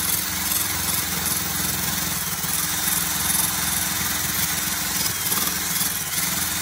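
A power drill running steadily with a small brush wheel spinning against the hard plastic top of a solar sidewalk light, lightly buffing out the sanded, weathered cloudy plastic over the solar cell.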